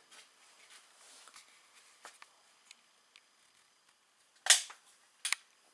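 A Slavia 630 .177 break-barrel spring air rifle fires a single shot about four and a half seconds in, a sharp crack. A fainter sharp knock follows under a second later. Soft handling clicks come before the shot.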